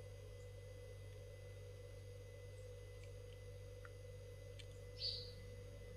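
Faint room tone: a steady low hum with a thin high tone over it. About five seconds in there is one brief soft rustle.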